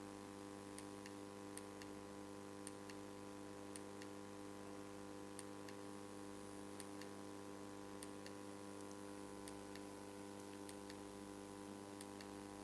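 Low, steady mains hum from a hall sound system, with faint, irregular ticks scattered through it.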